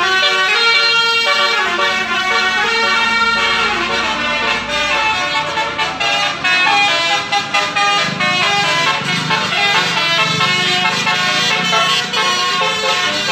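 Several telolet horns, the multi-note musical horns of basuri vehicles, sounding together and answering each other. Their overlapping tones step quickly from note to note in horn tunes.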